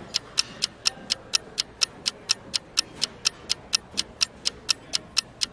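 Clock-like ticking of a countdown timer sound effect: steady, evenly spaced ticks, about four a second.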